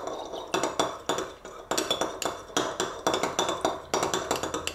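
A metal rod stirring inside a glass jar, knocking against the glass in quick, irregular clinks with a couple of short pauses. The jar holds turpentine and beeswax shavings that are starting to thicken into paste wax, so stirring is getting harder.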